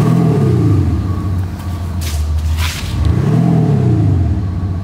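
Audi A6 (4G) V6 TDI diesel revved in two short throttle blips, the engine note rising and falling each time over a steady idle. It is heard at the rear by the exhaust, where the active sound system's actuator adds its synthetic engine sound. A short hiss comes about two seconds in.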